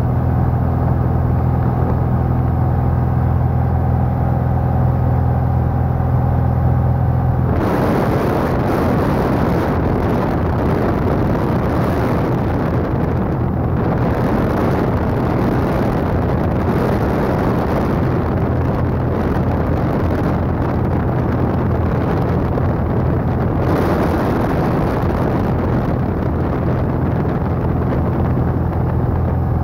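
Single-engine light aircraft's piston engine and propeller droning steadily in cruise, heard from inside the cockpit. From about 8 s to about 24 s a loud rushing air noise swamps the drone, and then the steady engine tone comes back clear.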